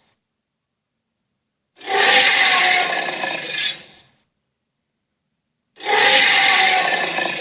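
Two harsh, noisy roar sound effects for an invented dinosaur creature, each about two seconds long, with dead silence between them.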